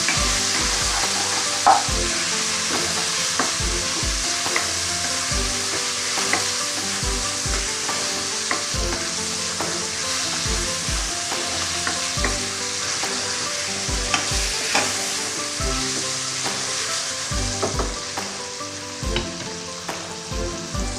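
Seasoned chicken pieces sizzling as they stir-fry in hot oil, stirred with a utensil that knocks and scrapes against the pan at irregular moments.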